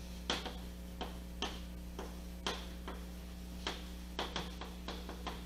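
Chalk writing on a chalkboard: a string of irregular sharp taps as the chalk strikes the board, over a steady low hum.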